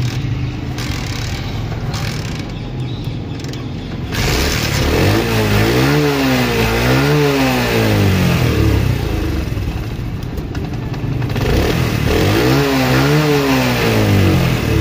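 Small single-cylinder four-stroke motorcycle engine running. It is revved in two spells a few seconds apart, the pitch climbing and dropping with each blip of the throttle.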